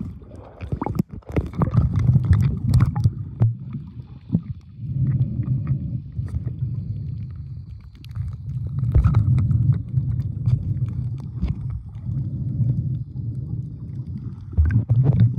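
Muffled underwater water noise as a swimmer moves: low churning and gurgling that swells and eases every few seconds, with scattered clicks.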